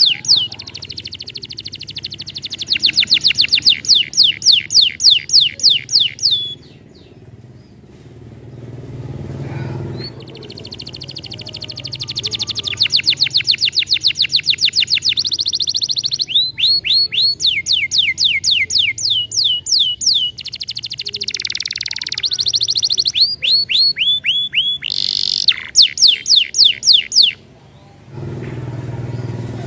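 Domestic canary singing: long, fast trills of repeated downward-sweeping high notes, with the tempo and note shape changing from phrase to phrase and a few short pauses between phrases.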